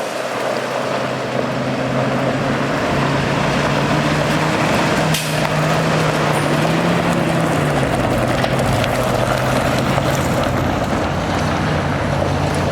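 Cummins B6.7L diesel engine running, its note rising for a couple of seconds in the middle and settling back. There is a single sharp click about five seconds in.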